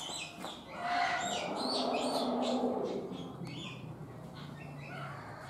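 Small birds chirping over and over in short, high notes. A broad rushing noise swells about a second in, is the loudest sound for a couple of seconds, then fades.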